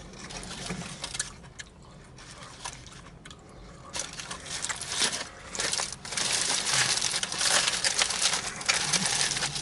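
A sandwich wrapper being crumpled into a ball, faint crinkles at first, then louder, continuous crinkling from about four seconds in.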